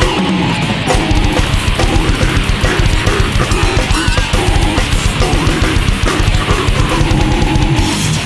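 Technical death metal recording: distorted electric guitar riffing at a fast, dense pace, with the lowest bass briefly dropping out about a second in.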